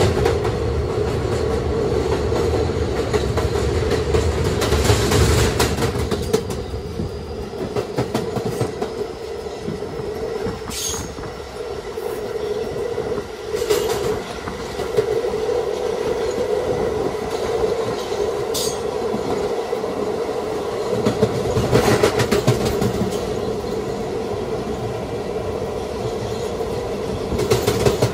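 Kawasaki R211A subway car running along the track: a steady hum with the wheels clacking over rail joints and a few sharp clicks. The low rumble is heavier in the first few seconds and swells again a little past the middle.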